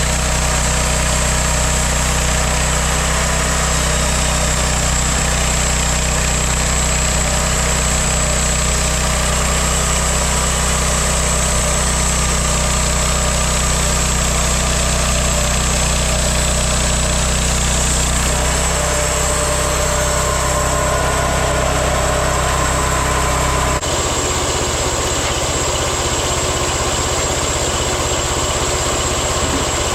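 Homemade band sawmill running, its engine droning steadily. The engine's low note shifts a little past halfway and changes again about three-quarters of the way through.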